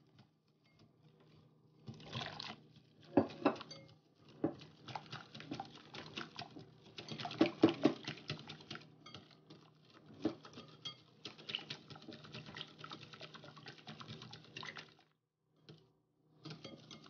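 Wire whisk beating a thin flour-and-water batter in a glass bowl: fast, irregular clicking of the wires against the glass. It starts about two seconds in, stops briefly near the end, then starts again.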